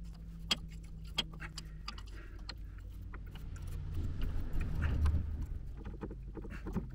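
Scattered sharp metallic clicks and clinks of hand tools and tractor drivetrain parts being handled during repair work, with a low rumble that swells a few seconds in.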